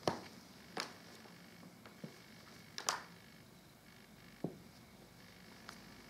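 A handful of short, sharp taps and clicks at irregular spacing over faint room hiss. The loudest is a quick double click about three seconds in.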